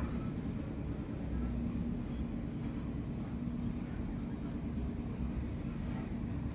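Steady low background rumble with a faint constant hum, no distinct knocks or clinks.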